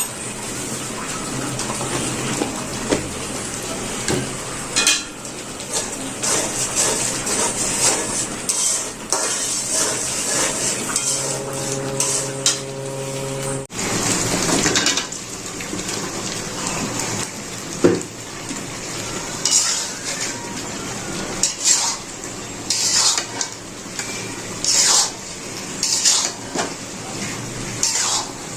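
A metal spoon or spatula scraping and clinking against a cooking pan over a steady hiss of frying, as the chicken roast is stirred. Midway, a steady hum sounds for a couple of seconds and cuts off abruptly.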